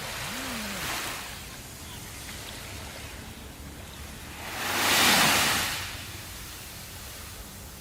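Sea waves breaking on a shore: a steady wash of surf with a small surge about a second in and one large wave swelling and washing in about five seconds in, then fading.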